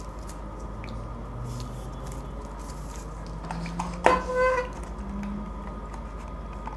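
Plastic drinking straw pushed through the cross-slit of a plastic cup lid, about four seconds in: a sharp pop followed by a short squeak.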